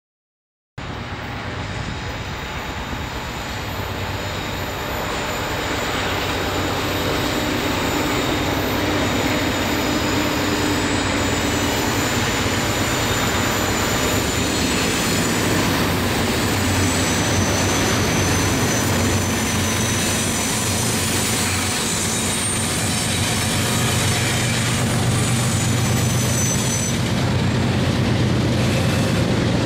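Diesel-hauled freight train approaching and rolling past with loaded ballast hopper cars: a steady low locomotive engine drone under the rumble of wheels on rail, with thin high wheel squeal. The sound cuts in about a second in and grows louder over the first few seconds, then holds steady.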